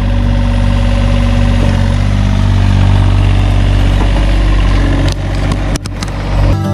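Engine idling steadily with a deep, even hum, broken by a few short knocks about five seconds in.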